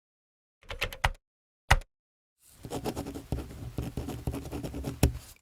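Small hard objects being handled: a quick cluster of clicks, then a single sharp snap, followed by about three seconds of scraping and rattling dotted with small clicks.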